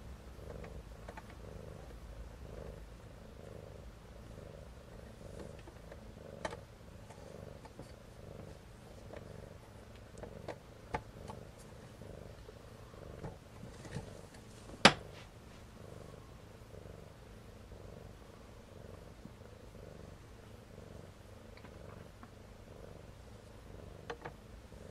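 Mother cat purring steadily and rhythmically while nursing her kittens. A few light clicks, with one sharp click about fifteen seconds in.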